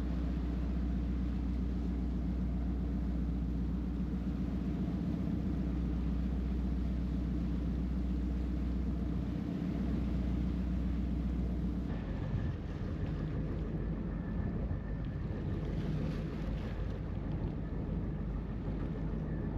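Motorboat engine running steadily under way, with wind and sea noise. About twelve seconds in the sound changes abruptly to a lighter engine hum with more wind.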